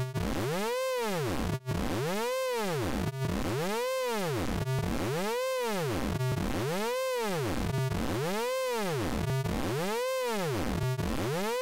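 Synthesized electronic tone made with the Orange Vocoder plugin, looping. Its pitch sweeps up and back down in an even arch about every one and a half seconds.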